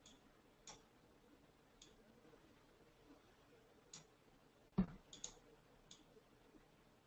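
Computer mouse clicking, about eight sharp, scattered clicks over a near-silent room tone, with one heavier knock about five seconds in.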